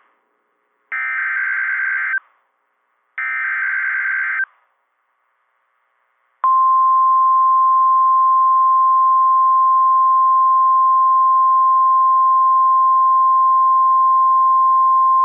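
Emergency Alert System activation on NOAA Weather Radio. It opens with two short bursts of screeching SAME header data tones about a second apart, the digital code that triggers alert receivers. After a brief silence comes the steady 1050 Hz warning alarm tone over radio hiss, held for about nine seconds, the signal that a warning, here a severe thunderstorm warning, follows.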